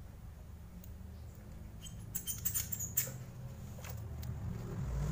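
Handling of a phone chest-strap mount's plastic phone clamp: scattered small plastic clicks and squeaks, with a quick cluster of them a couple of seconds in, over a low steady hum.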